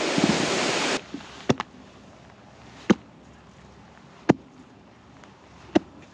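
Axe head striking pond ice in sharp, single knocks, a quick pair and then one about every second and a half, test-chopping to check the thickness of thin early-season ice. A loud rushing noise fills the first second.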